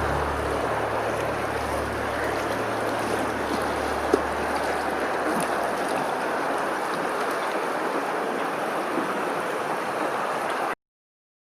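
Steady rushing noise of moving water, with a low motor hum underneath that fades away over the first several seconds and a single sharp click about four seconds in. The sound cuts off abruptly shortly before the end.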